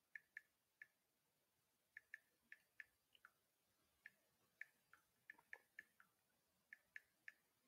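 Faint, irregular clicking: about twenty short, sharp clicks in uneven clusters, two or three a second, over quiet room tone.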